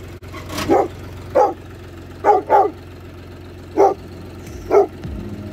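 A dog barking: six short single barks about a second apart, two of them in a quick pair, over a steady low hum.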